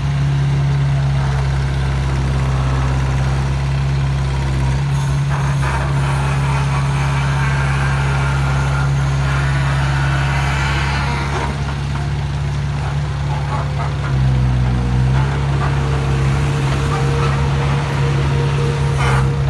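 Backhoe's diesel engine running steadily, with a hiss swelling and fading in the middle and the engine note dipping briefly about fourteen seconds in.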